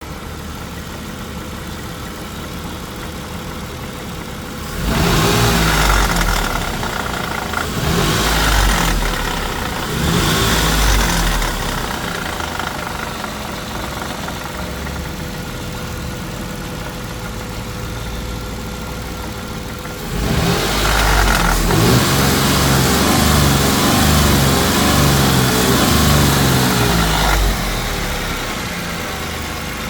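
Dodge Intrepid 2.7-litre V6 running at idle and being revved: three short blips about five seconds in, then a held rev of about seven seconds, then back to idle. A knocking and rattling from the exhaust comes from a catalytic converter whose core is breaking up inside its can.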